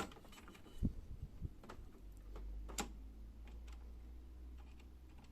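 Scattered light plastic clicks and taps as a printer pickup roller is fitted onto its shaft by hand, with a low rumble through the second half.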